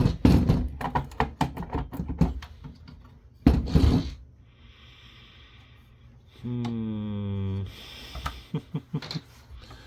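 Irregular small clicks, taps and clatter of metal tools and screws against a point-of-sale terminal's metal chassis during disassembly, with one louder clunk partway through.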